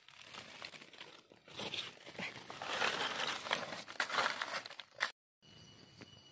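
Dry fallen leaves rustling and crackling as someone moves through forest leaf litter. The sound cuts out abruptly about five seconds in, and only a faint steady background follows.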